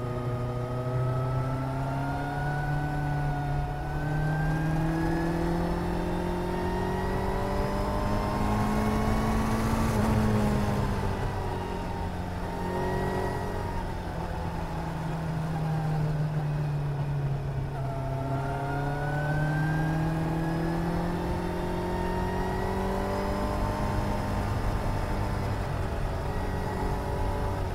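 Suzuki GSR 750's inline-four engine running under way on a climb. The revs rise smoothly for about the first ten seconds, fall away, hold, then rise again about two-thirds of the way through.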